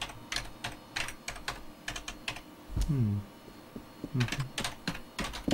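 Typing on a computer keyboard: irregular key clicks. Twice, about three and four seconds in, a short low sound falls in pitch over the clicks.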